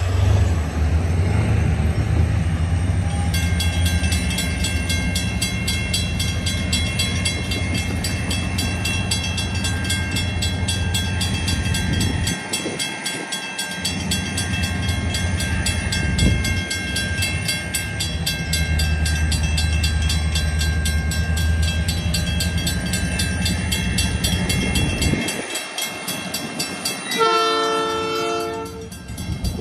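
Railroad crossing bell ringing steadily in rapid, even strokes over a low drone. Near the end the approaching excursion train's locomotive sounds its horn briefly.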